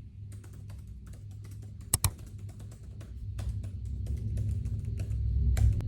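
Typing on a computer keyboard: quick, irregular key clicks, with a sharper double click about two seconds in, over background music.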